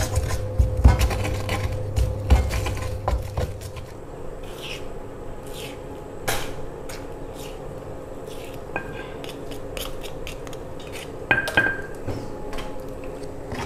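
Kitchen utensils knocking and clinking during spice preparation: a few heavy thumps in the first three seconds or so, then scattered lighter clicks and clinks of a knife, cutting board and pans.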